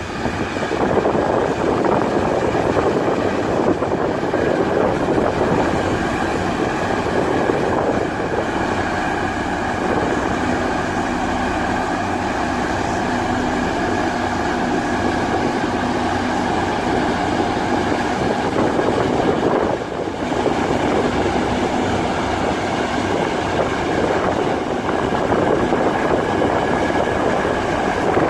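LiuGong single-drum soil compactors (road rollers) running and driving past: diesel engines and heavy steel drums make a steady, loud mechanical rumble with a rattling clatter.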